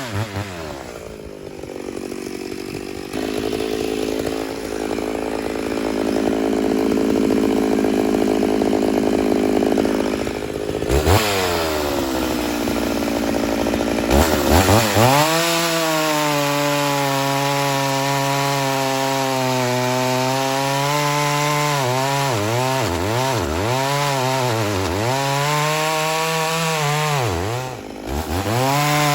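Ported Homelite Super XL-925 82cc two-stroke chainsaw running hard in red oak. Its revs drop and hold lower and steady for several seconds under the load of the cut, then climb back to a high steady scream. Near the end the revs dip and recover several times in quick succession.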